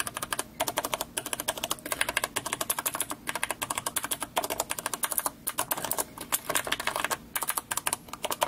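Mechanical keyboard switches being pressed rapidly, a fast run of sharp key clicks in quick bursts with brief pauses between them.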